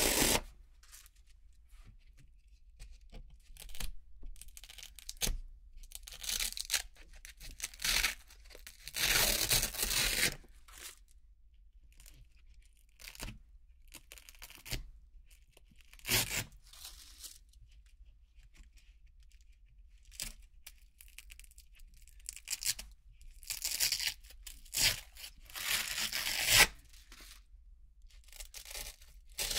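Velcro circles being ripped off a board covered in Velcro strips: a dozen or so crisp, crunchy tearing rips, some short and some a second or two long, with quiet pauses between.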